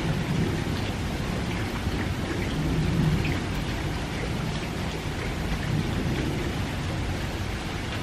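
Steady light rain from a distant typhoon falling on a garden. A low rumble swells briefly about three seconds in.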